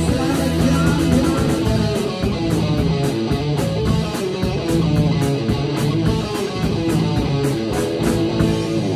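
Live rock band playing an instrumental passage: electric guitar, bass guitar and drum kit, with steady, evenly spaced cymbal strokes over the guitars.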